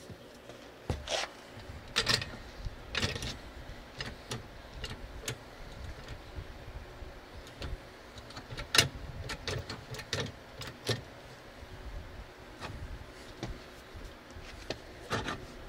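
Floor jack lifting a car's rear suspension against the coil spring to line up a new strut's lower mount: a string of sharp metal clicks and clunks at uneven spacing, the loudest about nine seconds in.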